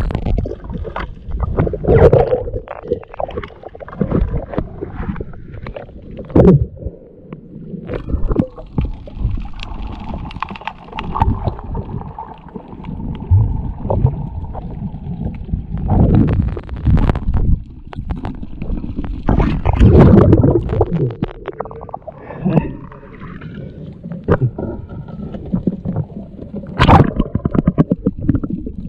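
Underwater sound through a diving camera: irregular low rumbling and gurgling of water moving around the housing, broken by many sharp clicks and knocks.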